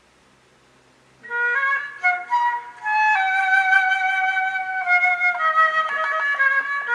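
A flute melody of held notes stepping from pitch to pitch, starting about a second in after a short silence.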